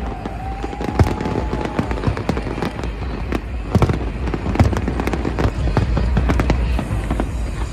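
Aerial fireworks display: shells bursting in irregular sharp bangs, the loudest about a second in and just past halfway, with crackling in between.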